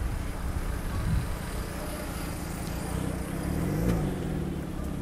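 Road traffic: car engines running close by, with one vehicle passing about three and a half seconds in, its engine note rising and then falling.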